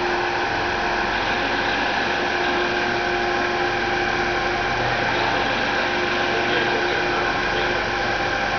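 Industrial fabric-winding machine running steadily as it rolls dark mesh fabric onto a large roll: an even whir with a few held tones, unchanging throughout.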